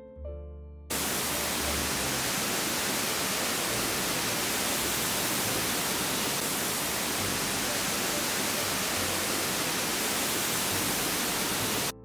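Steady rush of river water pouring over a low weir, a dense even hiss that cuts in suddenly about a second in and stops abruptly just before the end. Soft piano music plays before it starts.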